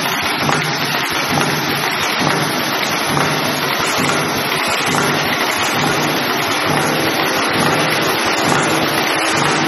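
Flat-cap liner cutting and inserting machine running: a loud, steady mechanical noise with a faint low hum underneath.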